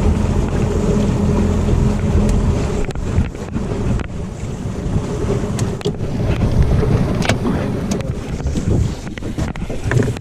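A fishing boat's motor runs steadily for the first two or three seconds, then drops away. After that, wind buffets the microphone, with a few sharp knocks scattered through.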